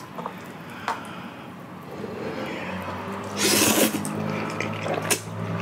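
One loud slurp of Chapagetti black-bean instant noodles sucked in from chopsticks about three and a half seconds in, followed by chewing. A few small clicks come before it.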